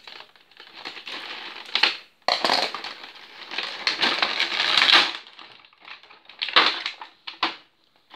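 Clear plastic packaging crinkling and crackling as hands pull and peel it off a plastic blister tray, in irregular bursts with a longer stretch a couple of seconds in.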